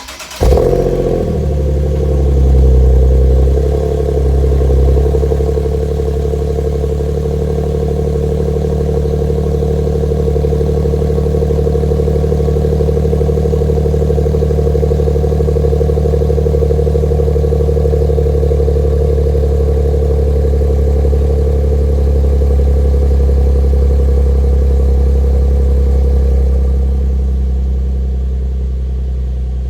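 Nissan 370Z's 3.7-litre V6 cold-starting through an HKS Hi-Power stainless dual catback exhaust: the engine catches right at the start and flares in revs over the first few seconds, then settles into a steady, loud cold idle. The idle eases down slightly near the end.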